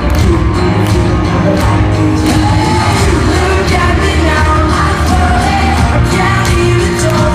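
Live pop-rock band playing loudly with sung vocals over a steady drum beat.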